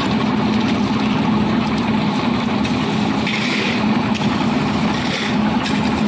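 Engine of a wheeled lift-attachment concrete mixer running steadily while the drum turns, mixing concrete, with a brief rushing noise about three seconds in.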